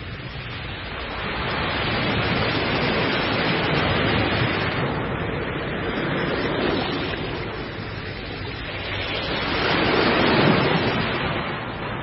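Large ocean waves breaking: a rushing wash of surf that swells and eases, loudest about ten seconds in.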